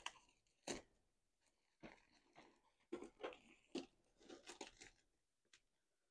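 Hands handling a pet stroller's fabric basket, pressing and adjusting the fabric and its straps: a series of short, faint rustles and clicks at irregular intervals.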